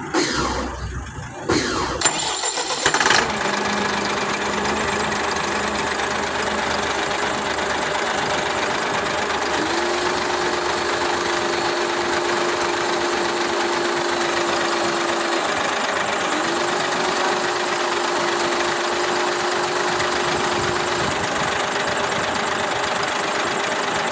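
Freshly overhauled Sinotruk truck diesel engine cranking and catching over the first few seconds, then running steadily. A steady whine comes in twice in the second half.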